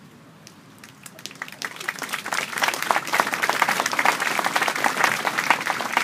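Audience applause, starting about a second in and building to full strength within a couple of seconds: a dense patter of many hands clapping.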